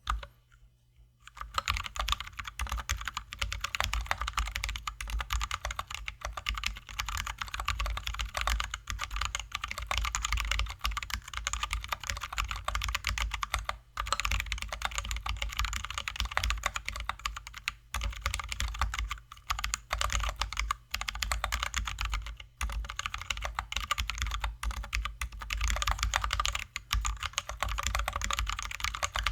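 Fast, continuous typing on a Drop ALT High-profile mechanical keyboard with lubed and filmed Zealios V2 67g tactile switches and Drop + MiTo XDA Canvas keycaps. The typing starts about a second and a half in and runs on with only a few brief pauses.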